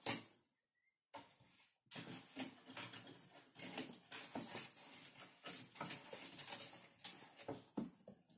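A kitten's claws scratching and scrabbling on a wooden folding tray table as it climbs the leg: a sharp knock at the start, then after a short pause a dense, scratchy run of small clicks and scrapes.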